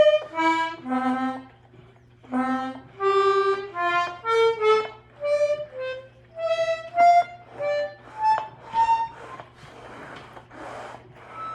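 Antique Hohner melodeon (button accordion) played one button at a time: short separate reedy notes stepping up and down in pitch. Near the end, notes give way to a breathy rush of air with only faint tones. The instrument still needs reed work and new valves.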